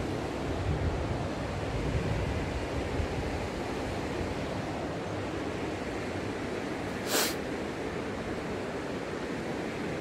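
Steady rushing noise of a waterfall's falling water, with low bumps in the first three seconds and one short hiss about seven seconds in.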